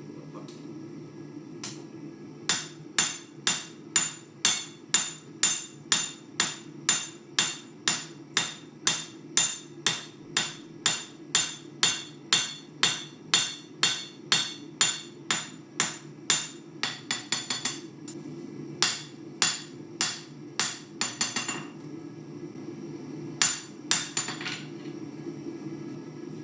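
Hand hammer striking a hot knife blade, forged from an old farrier's rasp, on the anvil: a long run of steady blows at about two and a half a second, with a quick flurry of lighter taps twice and a few pauses, as the bevels are drawn out. A steady low hum runs underneath.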